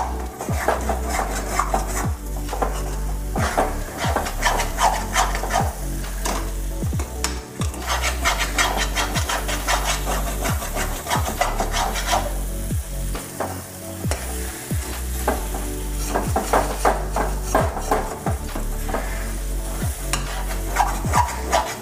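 Metal spatula scraping and stirring a thick cashew-almond paste frying in ghee in a metal kadhai, in quick repeated strokes over a steady sizzle. The paste is being roasted on low heat until the ghee starts to separate.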